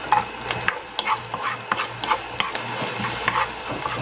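Garlic and onions sizzling in hot oil in a nonstick pan, with a wooden spatula scraping and tapping against the pan as they are stirred.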